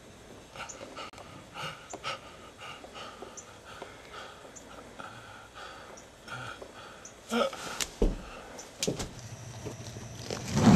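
A person panting heavily in short, rapid breaths, about two or three a second. This is followed by a few sharp clicks and a loud thump right at the end.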